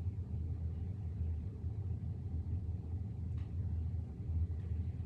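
Steady low background rumble, with a faint short click or rustle about three and a half seconds in.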